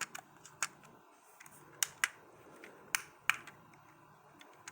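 Irregular sharp plastic clicks as the buttons of a small RC excavator's remote control are pressed, about eight times. No motor runs in response: the excavator is not working, which the owner puts down to a battery that needs more charging.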